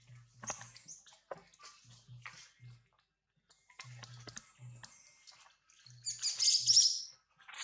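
A baby long-tailed macaque gives one high-pitched squeal of about a second, six seconds in. Before it come light scattered clicks and rustles of monkeys moving over dry leaves.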